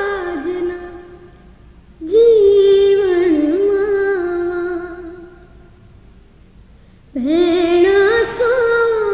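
A woman singing a Muharram noha (lament) in long, slow, held phrases with ornamented pitch glides. Each phrase fades away before the next begins: one comes in about two seconds in and another about seven seconds in.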